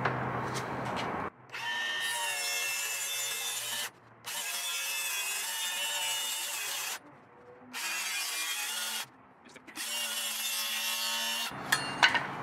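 Milwaukee FUEL cordless circular saw, blade tilted to 45 degrees, running and cutting a bevel along a 2x2 of wood, with a steady motor whine under the blade noise. It runs in four stretches of a few seconds, each starting and stopping abruptly.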